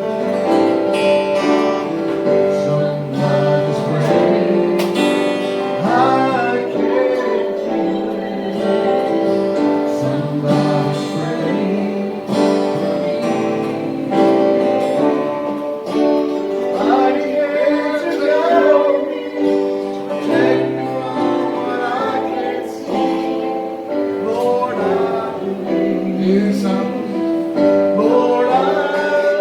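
Gospel music: acoustic guitar strumming with voices singing along.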